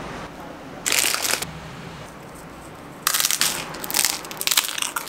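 Crunching of a puffed corn cake topped with avocado being bitten and chewed: a short crunchy burst about a second in, then a dense run of crisp crunches from about three seconds in.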